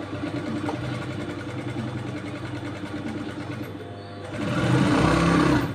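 Industrial sewing machine stitching fabric, running in a loud burst for the last second and a half before stopping abruptly.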